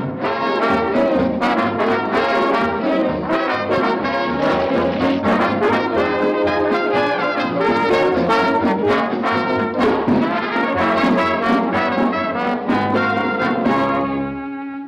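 Lively orchestral cartoon score led by brass, trumpets and trombones, with frequent sharp accents. It drops in level near the end.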